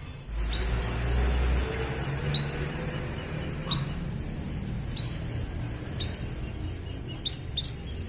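Canary giving short, sharp, very high chirps, each a quick downward sweep, about one every second, with two quicker chirps near the end. A low rumble runs underneath near the start.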